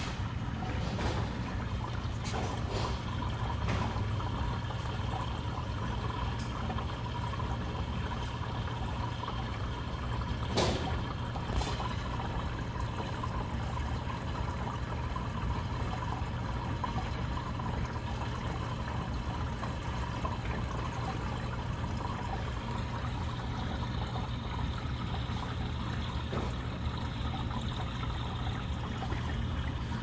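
Homemade vortex water fountain running: a steady trickle and splash of water over a low steady hum. A few brief clicks, the loudest about ten seconds in.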